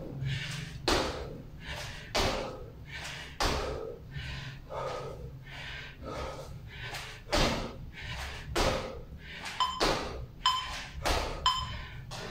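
Repeated thuds of feet landing from jump squats on a tiled floor, about one every second and a quarter. Near the end, three short electronic beeps sound, a countdown as the interval ends.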